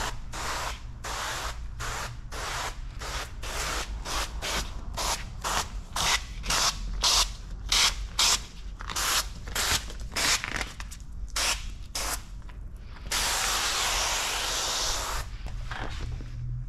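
Hand spray bottle spritzing liquid in quick short squirts, about two a second, followed about 13 seconds in by one longer continuous spray of about two seconds.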